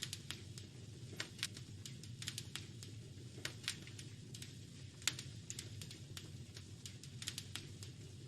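Wood fire crackling in a fireplace: irregular sharp pops and snaps, the loudest about five seconds in, over a steady low rumble.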